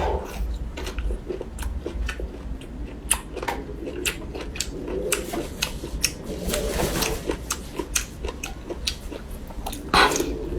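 Close-miked biting and chewing of bamboo shoots: a dense run of crisp crunches, with a louder bite near the end.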